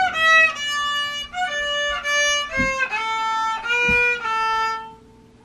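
A boy playing a simple melody on the violin, bowing one held note after another. The last note is held longest and stops shortly before the end.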